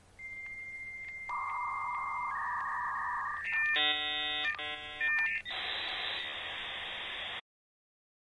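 Electronic logo sting made of steady synthesized beeps that step between high and middle pitches. These give way to a bright chord-like tone lasting about two seconds, then a hiss-like rush that cuts off suddenly about seven seconds in.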